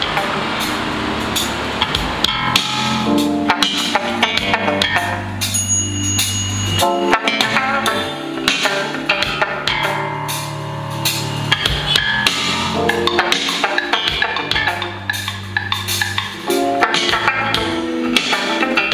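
A recorded song with a drum kit and a deep bass line, played through PA speakers from a Midas MR18 digital mixer fed over USB from a laptop, as a music playback test of the mixer.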